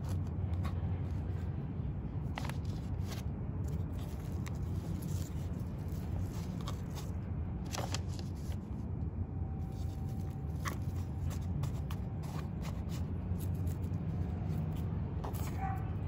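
Steady low hum of city traffic, with scattered sharp clicks and rustles from plants being handled and trimmed.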